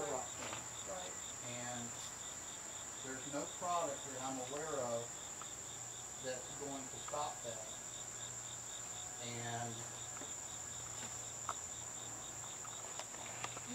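Insects chorusing: a steady high-pitched trill with an even, rapid chirping beneath it, about four chirps a second. A person's voice murmurs on and off over it.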